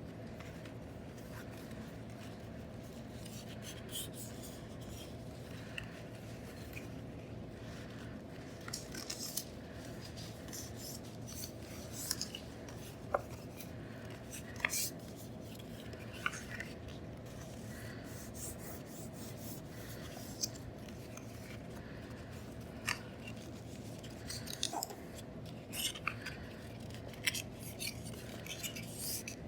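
Paper strip being folded and creased into an accordion: scattered crisp rustles, scrapes and light taps of paper over a steady low hum.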